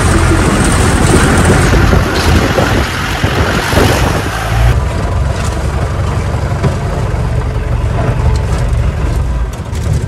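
Open jeep's engine running, at first under a loud rushing of wind and road noise while driving; about five seconds in the rushing drops away and the engine runs on at idle.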